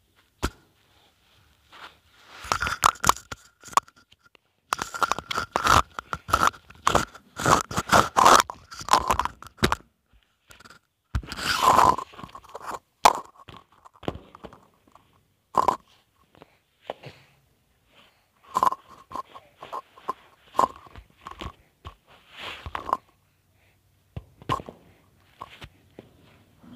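Close crackling and crinkling of a plastic henna cone being squeezed and handled, in irregular clusters of short crackles that are densest in the first half and thin out later.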